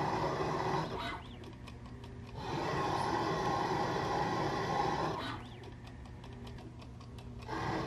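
Homemade small CNC lathe threading cast iron at 100 rpm: the spindle and stepper-driven carriage run in repeated passes, louder stretches of machine and cutting noise alternating twice with quieter stretches carrying light rapid ticks.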